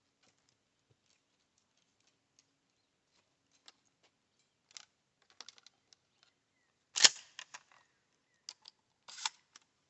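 Stevens 320 pump-action shotgun being handled and loaded with 3-inch buckshot shells: scattered small clicks, with one sharper, much louder clack about seven seconds in and a short run of clicks near the end.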